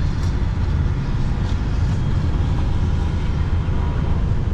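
A 2001 Peterbilt semi truck's diesel engine running steadily, heard from inside the cab as an even, deep drone.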